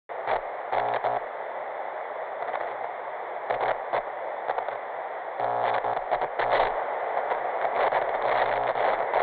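Static: a steady hiss with irregular crackles and sputters, the sound of a lost signal. It cuts in suddenly and grows a little louder about halfway through.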